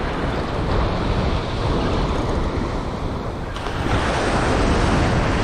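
Ocean surf washing on the beach with wind buffeting the microphone, a steady rush that grows louder about three and a half seconds in.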